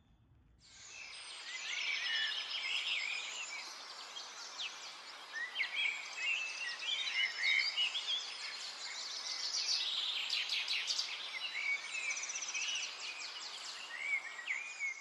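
Birds chirping and trilling over a steady hiss of outdoor ambience, fading in about a second in and cutting off near the end.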